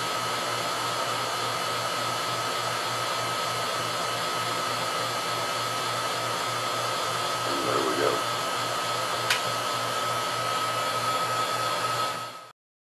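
Steady hiss and hum of a running vacuum pump and 70,000-volt DC discharge setup, with a constant high whine and a low pulsing throb. There is a single sharp click about nine seconds in, and the sound cuts off suddenly near the end.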